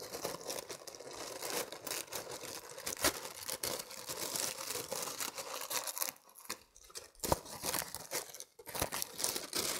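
Tissue paper rustling and crinkling as it is unfolded and pulled back by hand, with many small crackles and a couple of brief quieter pauses.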